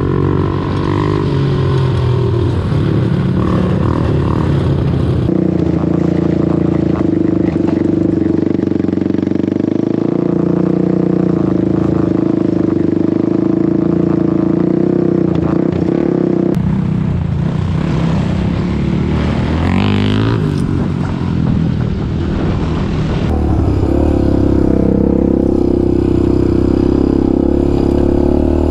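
Sport quad's engine running under way on a trail ride, its pitch shifting with throttle and rising in a rev about twenty seconds in. The tone changes abruptly a few times.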